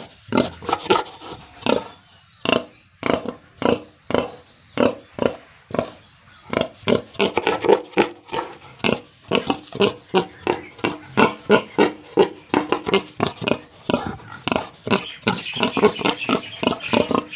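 Pigs grunting over and over in short, separate calls, a couple a second at first, then faster and overlapping from about six seconds in, with higher-pitched calls joining near the end.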